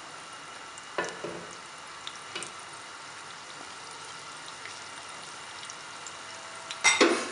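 Sliced onions in hot oil in a nonstick pot, sizzling faintly and steadily with a few small pops. A short, louder clatter comes near the end.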